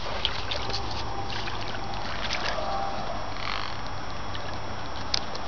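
Shallow creek water running and trickling over rocks, steady throughout, with a few light clicks and rustles.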